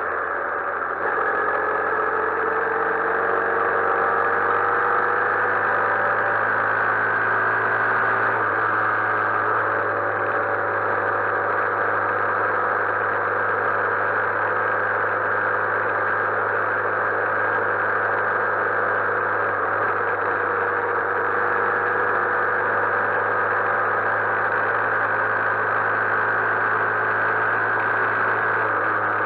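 Honda CB125E's single-cylinder four-stroke engine running under way, with wind and road noise on the bike-mounted camera. The engine note climbs gently over the first several seconds, then holds steady at cruising speed.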